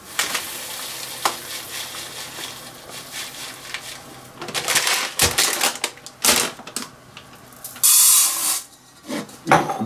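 Dry rice grains pouring from a crinkly plastic bag into a metal cup, a rattling hiss. About eight seconds in, the cupful is tipped into a multicooker's non-stick bowl with a short, louder rush of grains.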